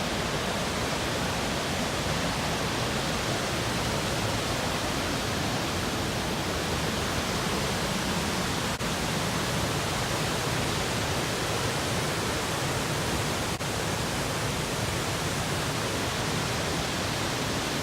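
Steady full rush of water from Jack's River Falls, a large waterfall pouring into a pool, with two very brief dropouts about halfway through.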